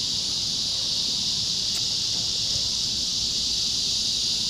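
A steady chorus of insects, heard as an even high-pitched hiss that neither rises nor falls, with a single faint click about halfway through.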